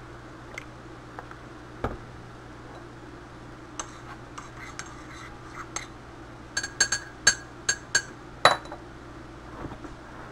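Metal spoon stirring coffee in a ceramic mug, clinking against the sides in a run of sharp ringing taps, with scattered lighter clicks before it and the loudest clink near the end.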